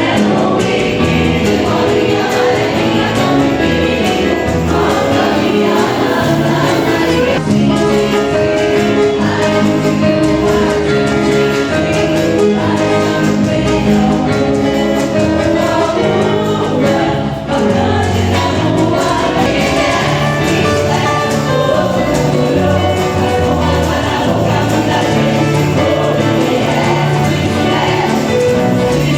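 Choir singing a gospel-style song with instrumental backing.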